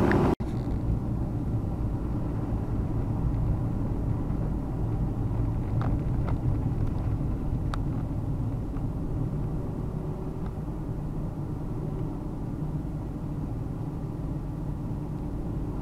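Car driving, a steady low engine and road rumble that eases slightly over the seconds, with a few faint ticks about six to eight seconds in.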